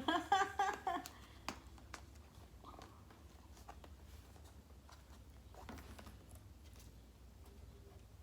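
Faint scattered clicks and light rustles of product packaging being handled and opened, over a steady low hum.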